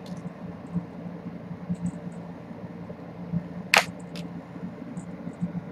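A few light clicks and taps, with one sharper click about two-thirds of the way in and a smaller one just after, over a low steady hum.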